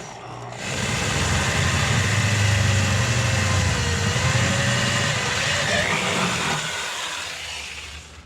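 Electric drill with a keyless chuck running under load as a larger bit enlarges a pilot hole in the car's body panel. It starts about half a second in, its pitch sags slightly midway as the bit bites, and it winds down near the end.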